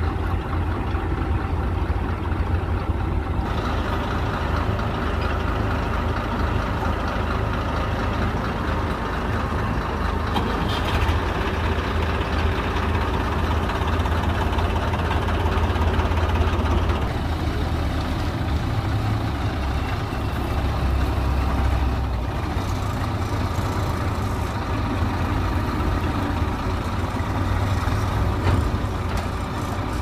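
Punni Tohana 'Grain Cruiser' combine harvester running: its heavy diesel engine and threshing machinery give a steady low hum that fills out with more high-pitched machine noise about three seconds in.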